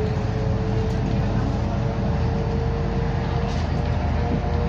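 Ride noise inside a moving MAZ-105 articulated city bus: steady engine and road rumble with a faint whine that shifts slightly in pitch.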